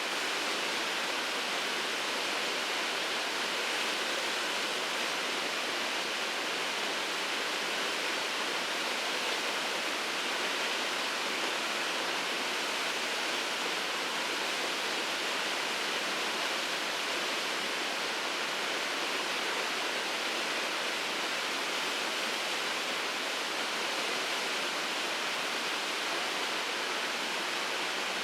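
Shirogane Falls waterfall: a steady, unbroken rush of falling water, an even hiss with no breaks or separate splashes.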